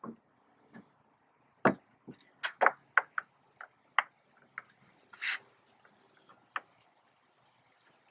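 Irregular sharp plastic clicks and knocks from toggle anchors being pushed through holes in a plastic kayak hull and their straps zipped down, with one short rasp about five seconds in.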